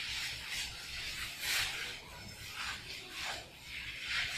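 Chalk being wiped off a blackboard: repeated rubbing strokes across the board, about two a second.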